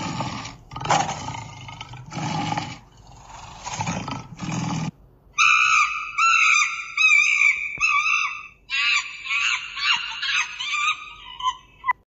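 A large animal's rough calls, about four long ones, give way about halfway through to a bird calling. The bird first gives repeated clear notes, then fast, varied chirps near the end.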